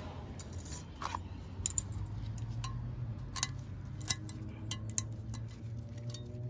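Light metallic clicks and clinks of new pad hardware clips being pressed onto a Honda Pilot's front brake caliper bracket: about a dozen short, sharp ticks at irregular intervals.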